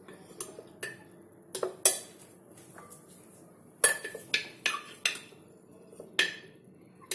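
A utensil clinking and knocking against a ceramic pickle jar and plate as salted, turmeric-soaked raw mango pieces are scooped out. About ten irregular sharp clinks, with a quick run of several around the middle.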